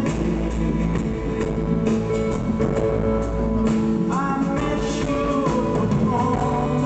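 A band playing live in an acoustic set: guitars and drums with voices singing over them.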